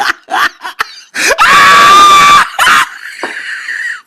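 A scream sound effect: after a few quick laughing bursts, a person lets out a loud, high-pitched scream held at a steady pitch for about a second, followed by a short cry and a fainter hissing wail near the end.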